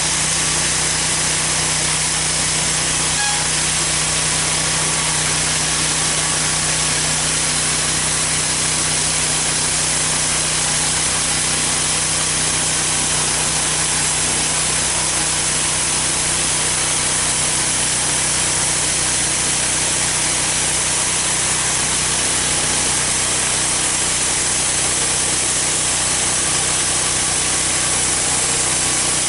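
Homemade band sawmill running steadily as its blade cuts through a poplar log. About three seconds in, the blade briefly strikes a nail buried in the wood.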